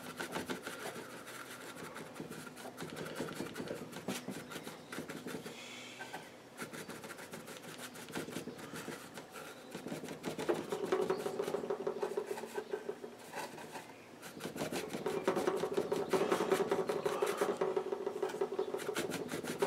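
Stiff bristle brush scrubbing and dabbing oil paint onto a painting board in quick rubbing strokes, getting louder about halfway through and again near the end.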